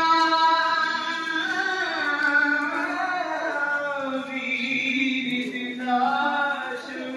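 A single voice chanting a noha, a mourning lament, in long held notes with slow glides in pitch between them.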